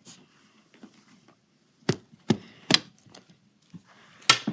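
Sharp knocks on a hard surface during play: three about half a second apart around the middle, then one more near the end.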